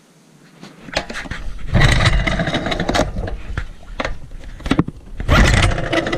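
Irregular knocks, scrapes and rumbling from the white plastic cover of a 4 hp Sears outboard being handled and rubbed right against the microphone, starting about a second in.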